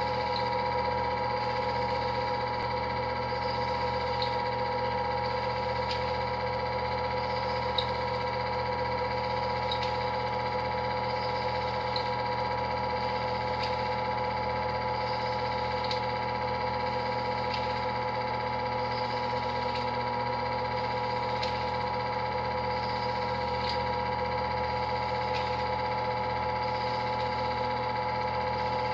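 8mm film projector running, a steady motor hum made of several even tones, with faint ticks about every two seconds.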